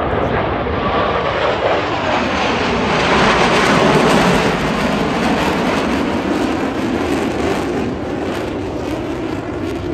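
An airplane flying past, its noise swelling to a peak about three to four seconds in and then slowly fading.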